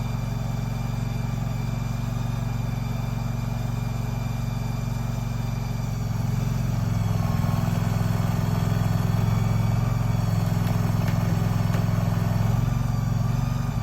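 Engine of a tracked shed-moving machine running under load while pulling a heavy shed through soft, wet ground where it may be stuck. It runs steadily, then works harder and louder from about six seconds in before easing near the end.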